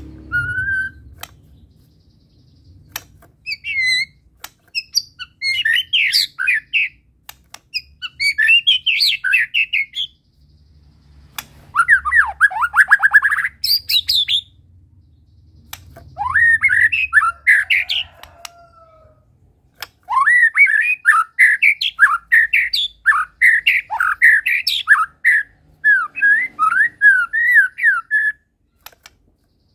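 White-rumped shama (murai batu, Medan type) singing a loud, varied song full of mimicked phrases. It comes in bursts of rapid whistles and chattering notes with short pauses between them, including a run of quick falling notes about twelve seconds in and a long unbroken stretch in the last third.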